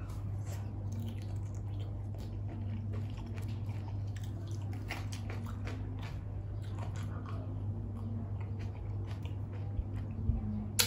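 Close-up chewing of a mouthful of raw shrimp dipped in spicy seafood sauce: wet mouth sounds and small crunches over a steady low hum. A sharp click comes near the end.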